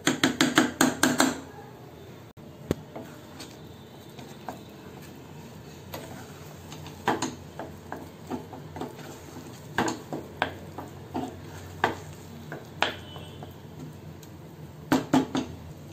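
Wooden spatula stirring thick gongura chutney in a stainless steel pan. It opens with a quick run of clatters, then gives scattered knocks and scrapes against the pan as the paste is cooked down on low heat.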